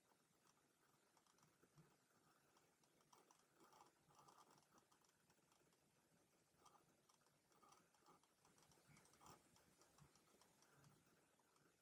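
Near silence: faint room tone with scattered faint ticks.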